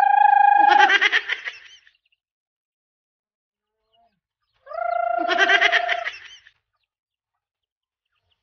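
Chicken calling twice, each call a held note that breaks into a rapid warbling, with dead silence between the calls.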